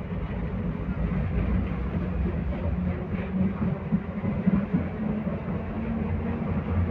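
BKM 60102 tram running along the track, with a steady low rumble of motors and wheels on rails. A few sharp knocks come about four to five seconds in.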